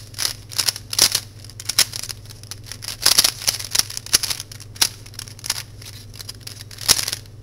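A plastic DIY speed cube being turned quickly by hand: an irregular run of sharp clicks and clacks as its layers snap round. The cube has been freshly tightened and is not yet lubricated.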